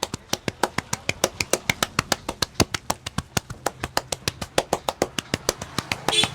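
Rapid rhythmic slapping and tapping of a barber's hands during a head massage, about six sharp strikes a second, some louder than others.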